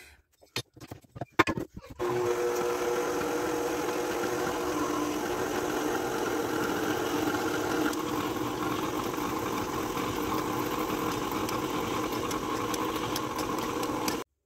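KitchenAid Artisan stand mixer running steadily with a dough hook, kneading bread dough, its motor a steady hum with a whine over it. A few knocks come first, as the hook and bowl are set; the motor starts about two seconds in and cuts off suddenly just before the end. It is a motor that the owner suspects she burnt out when it smoked.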